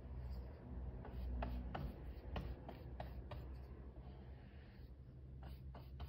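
Natural-bristle chip brush dragging white chalk paint across bare plywood boards: a run of short, faint scratchy strokes, with a pause in the middle and a few more strokes near the end.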